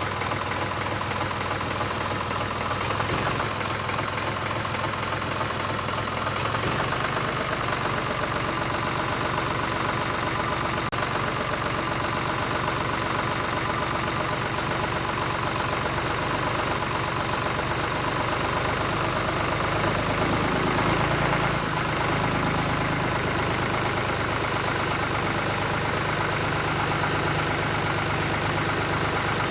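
RC toy tractor running with a steady engine-like idling sound and a rapid knocking tick.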